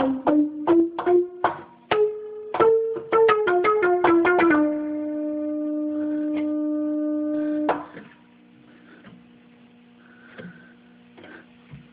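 ARP 2600 analog synthesizer played from its keyboard, out of calibration and badly tuned: a quick run of short notes, then one note held for about three seconds that cuts off sharply. For the last four seconds only a faint low hum remains.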